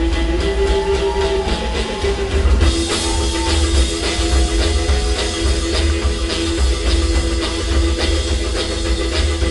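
Live rockabilly band playing an instrumental passage: upright bass, drums, electric guitar and saxophone, with a long held note over the rhythm. The drums open up with brighter cymbal hits about three seconds in.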